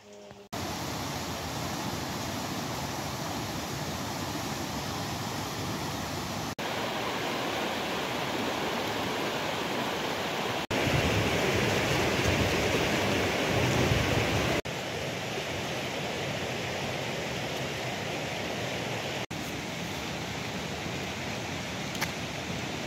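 Rushing water of a rocky woodland stream running over small rapids, heard as a series of short clips that cut abruptly every few seconds; it is loudest in the middle.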